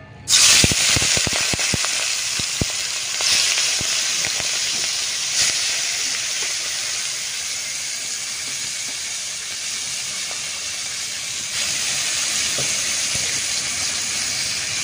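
Prawns sizzling in hot oil in a karahi, starting suddenly as they are dropped in. Sharp crackling pops fill the first few seconds, then settle into a steady frying hiss that swells a few times.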